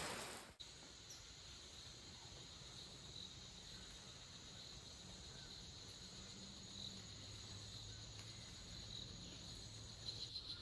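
Rain noise cuts off about half a second in. It leaves a faint, steady, high-pitched chorus of insects chirring in tropical vegetation.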